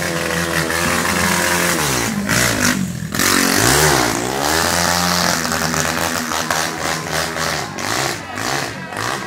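Motorcycle engines revving up and down. The pitch drops about two seconds in, dips and climbs again near the middle, then rises and falls repeatedly.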